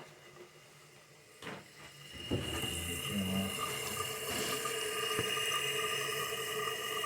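Water starts running about two seconds in: a steady rush with a whistling tone through the plumbing fixture.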